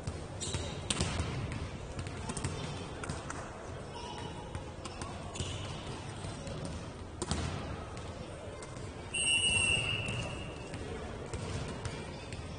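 Basketball game play: a ball bouncing on a hall floor with scattered knocks and background voices. A brief high-pitched tone sounds about nine seconds in.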